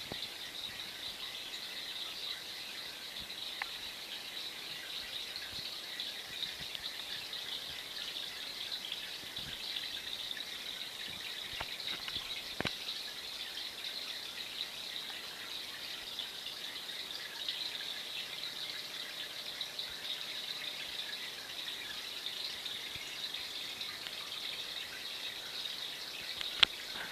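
A running aquarium: a steady, high fizzing hiss of moving water and small bubbles, with a few faint clicks and one sharp click near the end.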